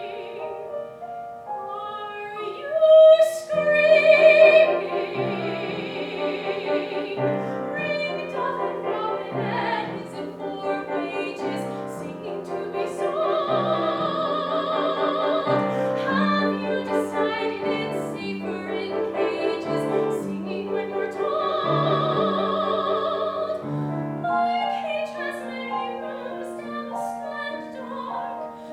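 A female soprano singing a musical-theatre ballad in a classical, operatic style with vibrato, holding several long notes, accompanied by piano.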